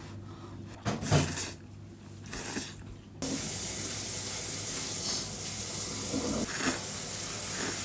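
A few light knocks and handling sounds, then about three seconds in a tap is turned on and water runs steadily for about five seconds.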